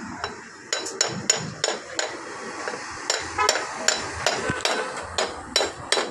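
Repeated sharp strikes of metal on metal, about fourteen at an uneven two to three a second, several with a brief ring, starting under a second in.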